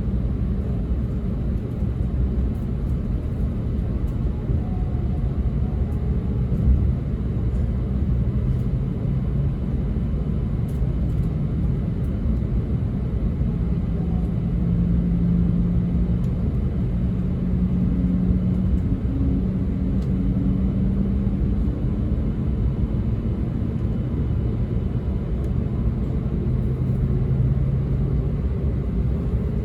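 Running noise of a JR East E2-series 1000 Shinkansen train, heard inside a passenger car: a steady low rumble of the train on the rails, with low hums that come and go around the middle and near the end.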